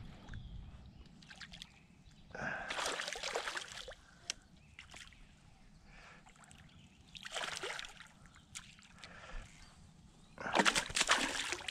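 A hooked bass splashing and thrashing at the water's surface as it is drawn in to the bank, in three separate bouts, the last the loudest, with quieter pauses between.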